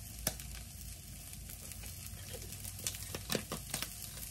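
Vegetables and sausage sizzling faintly in a frying pan, a steady hiss, with a few light clicks and taps, mostly near the end.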